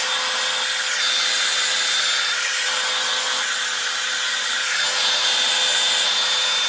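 Handheld blow dryer running steadily on high, a loud rushing hiss with a thin high whine, drying glue along a wig's lace edge.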